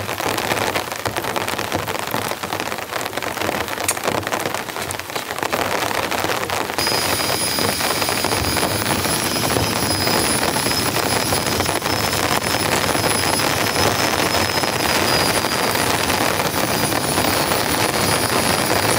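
Heavy rain falling steadily on a tarp and the surrounding bush, getting a little louder about six seconds in.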